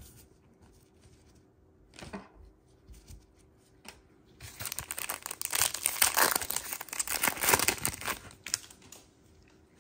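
Foil trading-card pack being torn open and crinkled by hand, a dense crackling that starts about halfway in and lasts some four seconds, after a couple of soft taps.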